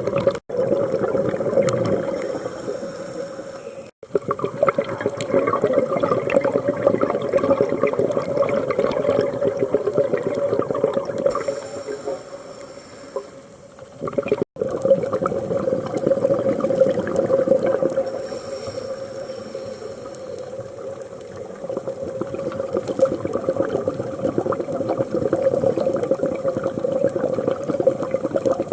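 Scuba diver breathing through a regulator underwater, exhaled bubbles gurgling, in slow breath cycles that swell and fade every few seconds. The sound drops out for an instant three times.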